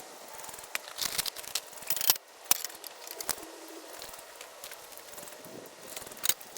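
Lawn mower lift parts being unpacked and handled for assembly: irregular clicks and knocks of the parts, with rustling of the packaging.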